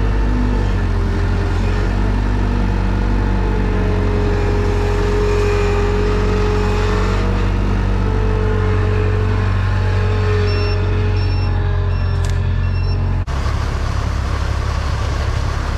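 Skid-steer loader's engine running steadily while it sets a round bale onto a bale wrapper, with a high backup alarm beeping about four times near the end. It then switches abruptly to a tractor engine running with the bale wrapper.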